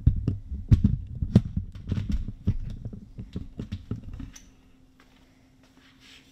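Camera handling noise: a quick run of knocks and low thumps as the camera is moved and set steady. They stop about four seconds in, leaving a faint steady hum.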